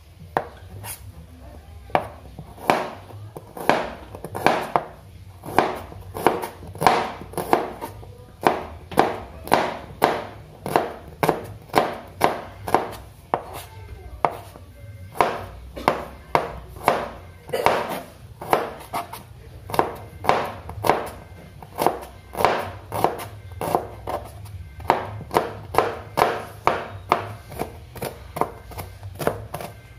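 Kitchen knife slicing shallots on a cutting board: a steady rhythm of sharp knife strokes hitting the board, about three strokes every two seconds.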